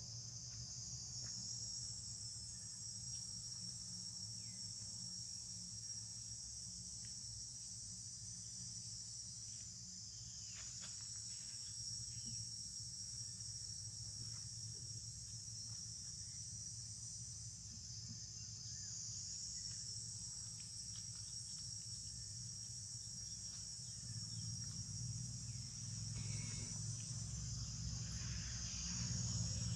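An insect chorus: a steady high shrill drone that swells and shifts every several seconds, over a low rumble that grows louder near the end.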